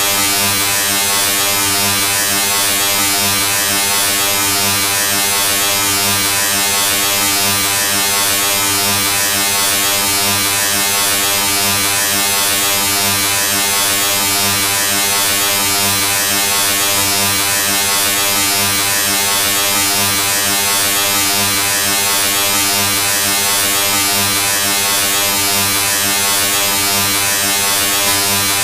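Steady, unchanging electronic buzz with many evenly spaced overtones and a hiss above them, running on without a break as a looped sound effect.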